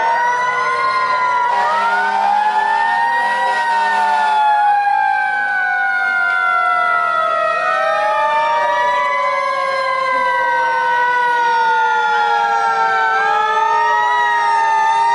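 Several fire engine sirens sounding at once: wails rising and falling in slow arcs, layered over long tones that slowly fall in pitch.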